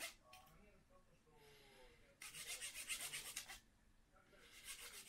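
Small hand saw cutting a thin wooden stick with short, quick back-and-forth strokes, in two spells: one starting about two seconds in and lasting a second and a half, and another starting near the end.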